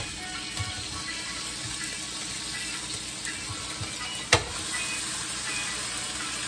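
Beef steak sizzling on an electric contact grill, with a few light knocks of metal tongs against the meat and the grill plates. About four seconds in, a single sharp clack as the grill's hinged lid is shut down onto the steaks.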